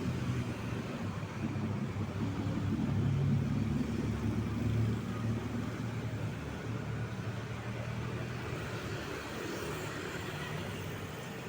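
Road traffic with a heavy vehicle's engine running past, loudest a few seconds in, then slowly fading.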